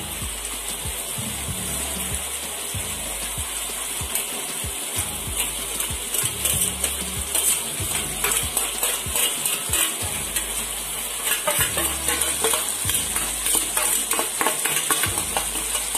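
Thick sambal sauce sizzling and bubbling in a wok, with a metal spatula stirring it and scraping against the pan in many short clicks.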